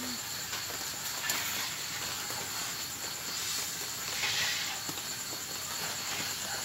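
A steady hiss with a thin, steady high insect trill running through it; the hiss swells briefly about four seconds in.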